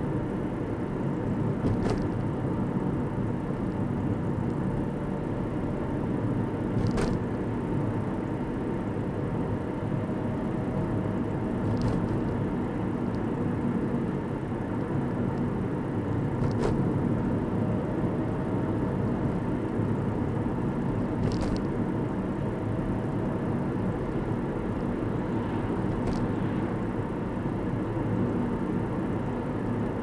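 Steady tyre and engine noise inside a car cruising over a bridge, with a short click about every five seconds as the tyres cross the deck's expansion joints.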